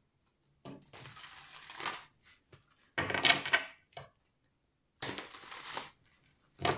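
A deck of tarot cards being shuffled by hand, in several short bursts of papery card rustling and flicking.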